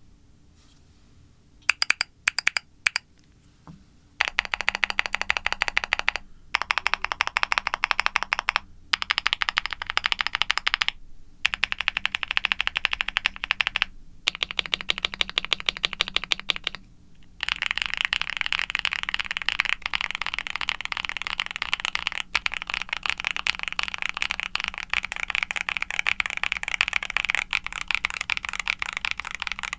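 Typing on a CreateKeebs Luminkey75 aluminum mechanical keyboard with a polycarbonate plate and foam dampening, fitted with lubed Akko Creamy Lavender Pro tactile switches and GMK doubleshot ABS keycaps. A few single keystrokes come about two seconds in, then runs of fast typing broken by short pauses, and unbroken typing over the last twelve seconds or so.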